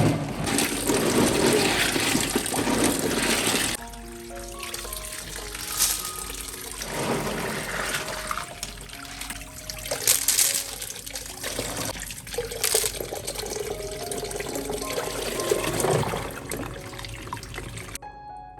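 Water running and splashing in a sink: a steady gush for the first few seconds, then shorter splashes on and off, stopping shortly before the end. Soft background music with piano-like notes plays underneath.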